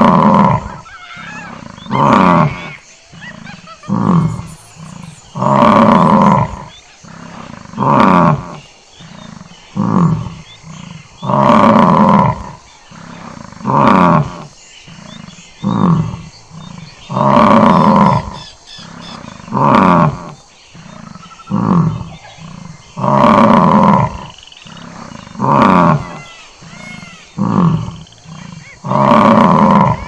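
Bison bellowing: loud, deep calls about every two seconds. Each longer call is followed by two shorter ones, and the pattern repeats about every six seconds.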